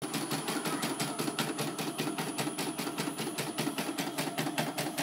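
CNY portable computerised embroidery machine stitching a design into hooped fabric: a fast, even rhythm of needle strokes, about seven a second, over the hum of its motor.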